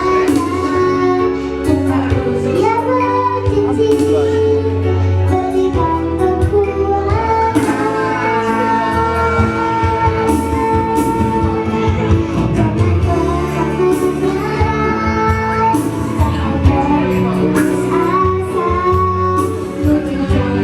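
A woman singing a song with held, gliding notes over instrumental backing with a steady bass line.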